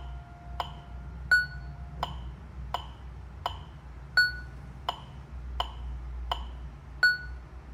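Metronome ticking at about 84 beats a minute, with a higher ping on every fourth beat marking the downbeat. A held keyboard note sounds under the clicks for the first two seconds, then stops.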